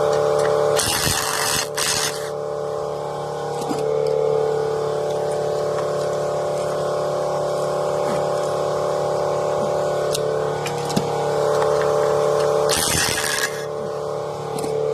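Air impact wrench on a Lexus's torque converter bolts: two short hissing, rattling bursts, one about a second in and a shorter one near the end, over a steady mechanical hum.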